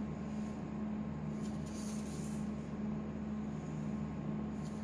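Steady low electrical hum with a faint hiss over it. It does not change, and nothing else stands out.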